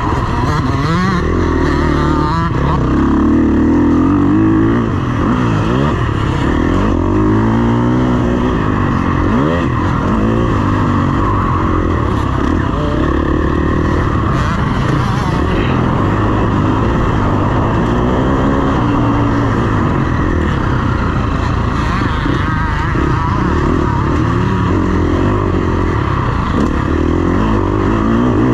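2021 KTM 350 SX-F motocross bike's single-cylinder four-stroke engine being ridden hard, its note climbing and dropping back over and over as the throttle is opened and closed and it shifts gear.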